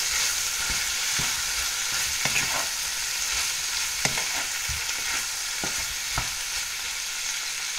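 A pan of vegetables, pineapple, prawns and scrambled egg sizzling steadily while being stir-fried, with a utensil knocking against the pan a few times as it is stirred.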